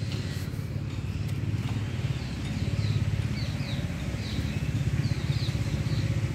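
A steady low rumble with birds chirping over it in a run of short, quick notes that fall in pitch, starting about two seconds in.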